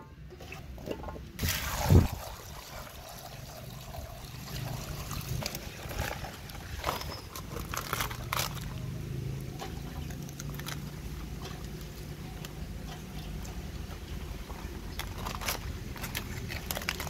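Fresh banana leaves rustling and crackling as hands fold and press them over a bowl, with scattered light scrapes and clicks. A single loud knock comes about two seconds in.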